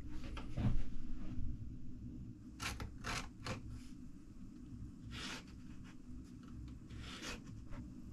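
Ballpoint pen scratching on wood in several short strokes, after a few light knocks of parts being set down on the workbench. A low steady hum runs underneath.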